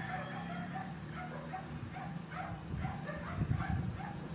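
An animal calling over and over, short yelping calls about three a second, with low knocking and rustling from handling about three and a half seconds in.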